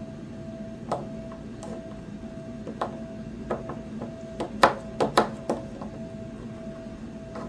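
Metal screwdriver shorting across the terminals of a can capacitor, making a series of short sharp clicks, several in quick succession about halfway through. There is no big discharge crack, because the capacitor had already bled off to ground through a stray wire. A faint steady hum runs underneath.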